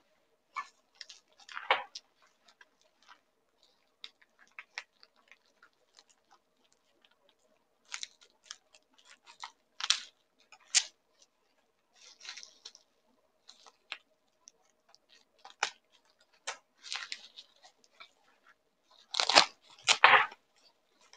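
Plastic bubble wrap crinkling and crackling in short bursts as it is pulled off a stainless steel shaker, loudest near the end.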